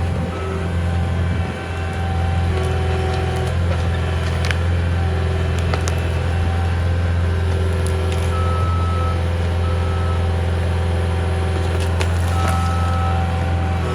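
CAT 259D compact track loader's four-cylinder diesel engine running steadily under load while it grapples a stump, with intermittent beeping tones, its reversing alarm sounding on and off, and a few sharp knocks.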